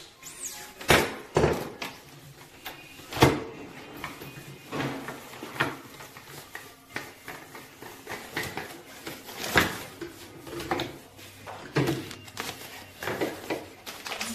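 Irregular knocks and clunks of hard plastic as the filter cartridges, housing and fittings of an under-sink RO water purifier are handled and set down.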